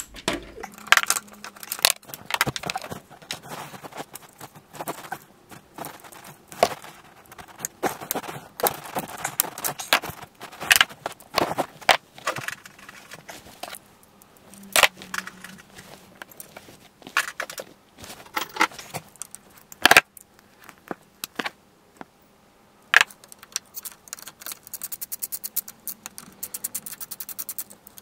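Metal hand tools clinking, knocking and scraping while motorcycle exhaust header bolts are being tightened. Near the end, a socket ratchet clicks rapidly for a few seconds.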